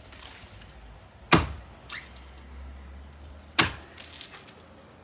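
A hand-swung blade chopping into a coconut palm trunk: two sharp, separate strikes about two seconds apart.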